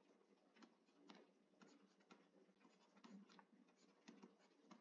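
Faint, scattered taps and scratches of a stylus writing on a tablet screen, close to silence.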